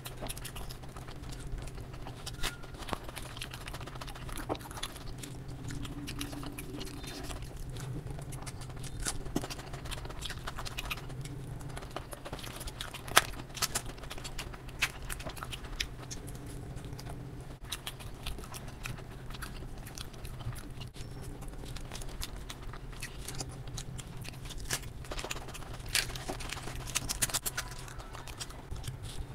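Close-miked eating: a person chewing food, with many short wet clicks and smacks throughout, over a steady low hum.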